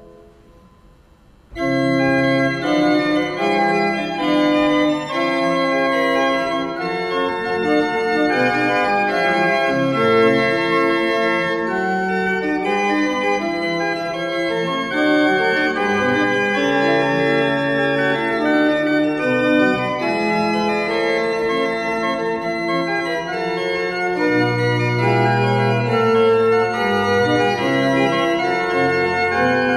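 Organ music with held chords and a moving upper line. It starts suddenly about a second and a half in, after a brief lull.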